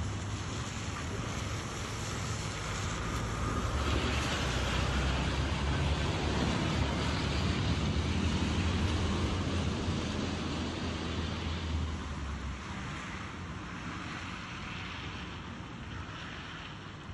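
Wind rumbling on a phone microphone over a steady rush of heavy rain and fast-flowing floodwater. The wind rumble is strongest in the middle and eases toward the end.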